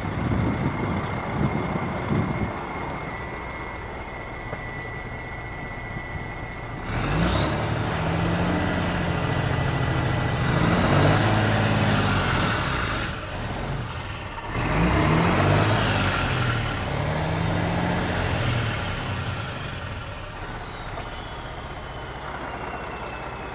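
Semi truck's diesel engine revved twice, its pitch rising and falling each time with a high whine that climbs and then slowly falls away. Before the first rev, a steady high tone sounds over the engine.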